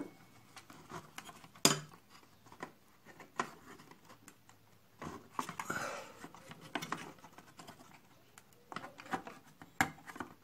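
Scattered light clicks, taps and scratches of small wooden and metal parts of a toy wagon being handled and fitted. The sharpest click comes just under two seconds in, with a denser patch of handling noise around the middle.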